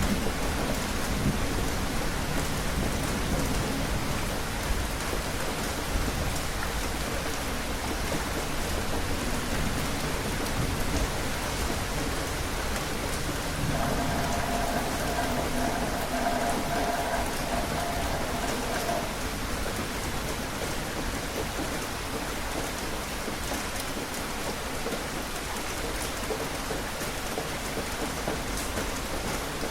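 Steady rain falling. A low rumble, like distant thunder, fades over the first several seconds, and a faint steady hum is heard from about halfway in for a few seconds.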